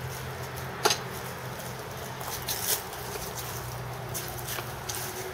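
The iron head and handle of a wooden-slatted basket wine press being turned down on fermented grapes: sharp metal clicks and clanks at irregular intervals, the loudest about a second in, over a steady low hum.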